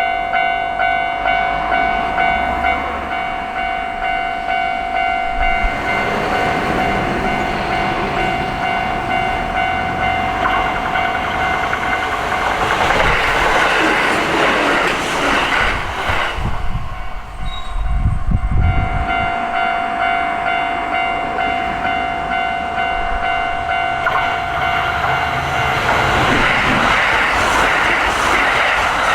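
Japanese level-crossing warning bell dinging in a steady, repeating rhythm as electric trains pass. Train noise and wheel clatter swell and drown the bell about halfway through, and again near the end.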